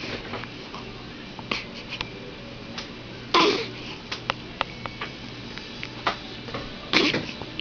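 A one-week-old baby hiccupping: two short hiccups a little over three seconds apart, with faint small clicks in between.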